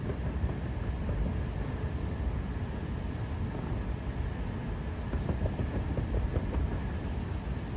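Distant harbour fireworks heard as a continuous low rumble of booms, with faint crackling about five seconds in.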